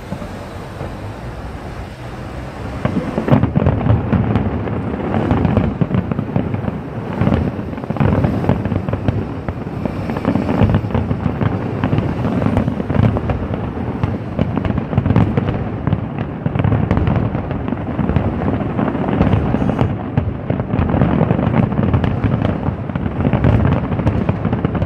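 Fireworks display: after about three seconds, a dense barrage of bangs and crackles starts and goes on without a break.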